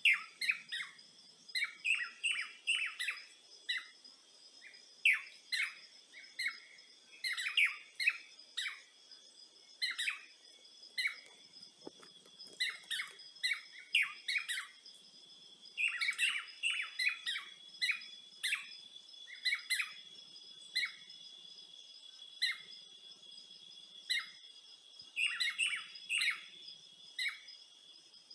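Several birds chirping with short, sharp calls, scattered and overlapping. Behind them runs a steady high insect trill.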